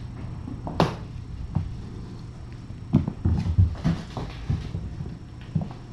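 Kittens' paws thudding on the floor as they scamper and pounce after a wand toy: a sharp knock about a second in, a quick run of thuds around three to four seconds in, and one more near the end.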